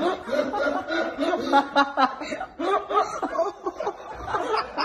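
A person laughing on and off, with short breaks between laughs.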